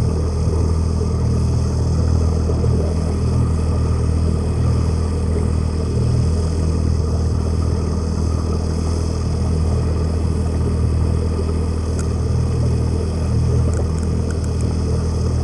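A towing boat's engine running steadily, heard underwater: a constant low hum held on a few fixed low pitches.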